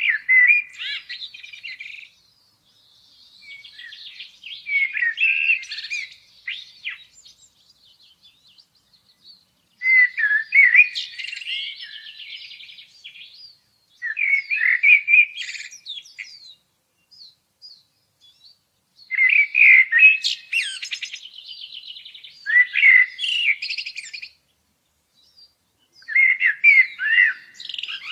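A songbird singing in about six bursts of quick chirps and twittering trills, each a few seconds long, with short silent pauses between them.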